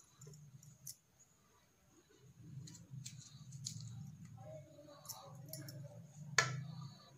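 Kitchen knife slicing okra pods on a wooden chopping board: a few faint clicks and taps, with the sharpest knock near the end, over a faint low hum.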